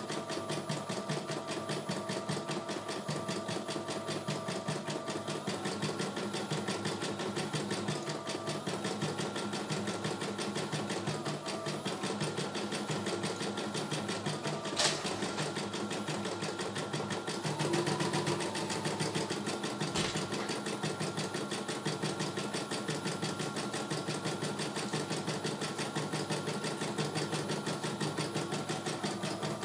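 CNY E900 computerized embroidery machine stitching a design: rapid, even needle strokes over a motor whine that shifts in pitch now and then. A sharp click about halfway through.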